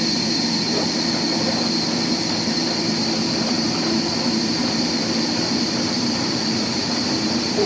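Sawmill machinery running steadily: a loud, even mechanical noise with a steady high whine.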